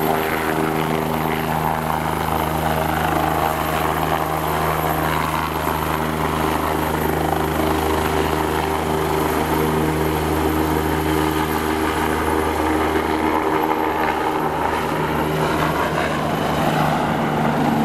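Bell 427 twin-turbine helicopter lifting off and climbing away, its rotors and engines making a steady loud drone. The deepest tones thin out and break up in the last few seconds as it moves off.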